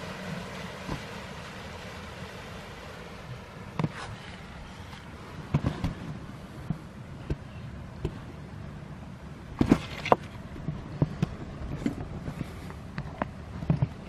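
Water rushing and churning between rocks, a steady hiss, with scattered sharp knocks and clicks on top; the loudest knocks come as a pair about ten seconds in.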